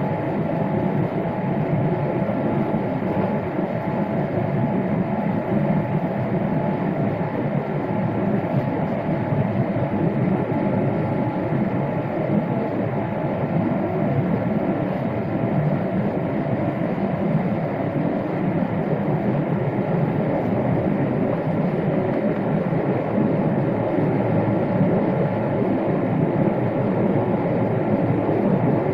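Boeing 787-8's GEnx-1B turbofan engines running during the climb after takeoff, heard from inside the cabin as a steady rumble with a few faint steady tones in it.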